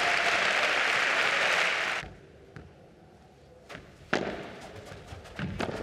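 Crowd applauding after a padel point, cut off abruptly about two seconds in. Then a rally starts: a handful of sharp hits of the padel ball off rackets, one louder strike about four seconds in.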